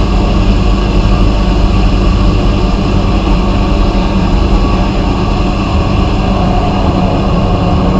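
Vapor blasting equipment running steadily: a loud continuous hiss from the blast over a low machine hum.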